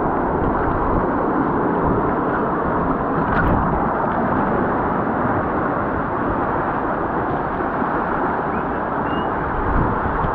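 Steady, muffled rush of water carrying a raft down a concrete rapids-ride channel.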